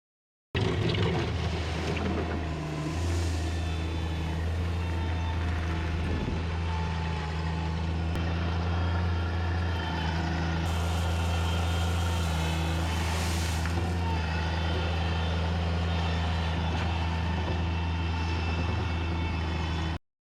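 Engine of a construction machine running steadily with a deep, even hum, starting about half a second in and cutting off abruptly near the end.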